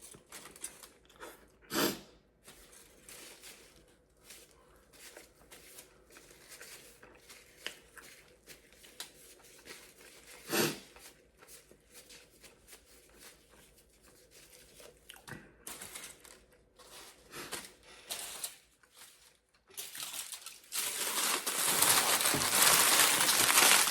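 Food wrapper crinkling and tearing in short scattered crackles, with a louder continuous crumpling over the last few seconds.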